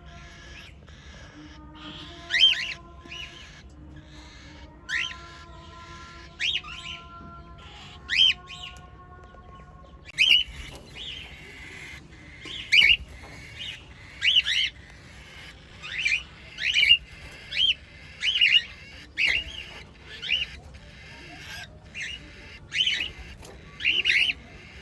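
Cockatiels calling: short, shrill, rising-and-falling calls. At first they come every couple of seconds, then about once a second from around ten seconds in.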